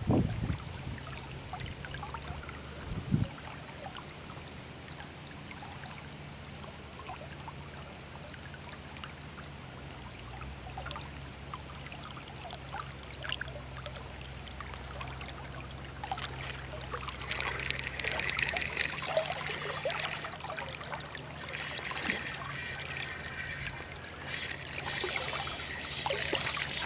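River water flowing and trickling, with a steady low hum underneath; the water sound grows louder and brighter in the second half.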